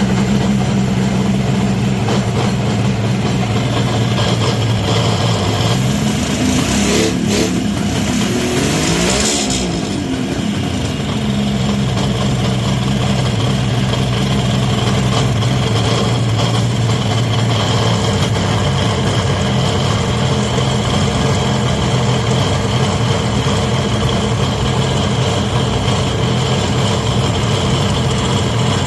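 Kawasaki Mach III H1B's 500 cc two-stroke triple running at idle, revved up once about six seconds in and falling back to idle by about ten seconds. The owner hears abnormal noises from both the bottom end and the cylinders, though the engine is said to have been overhauled.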